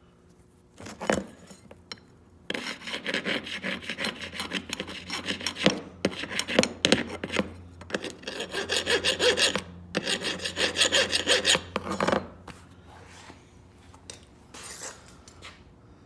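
A metal file rasped back and forth in quick strokes over a freshly hardened steel part, skating across it without cutting: the sign that the heat treatment made the steel file-hard. A sharp knock sounds about a second in, before the filing starts.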